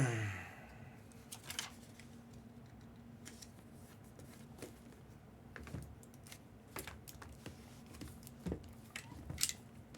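Irregular light clicks and taps of boxes and packaging being handled on a tabletop, with quiet stretches between.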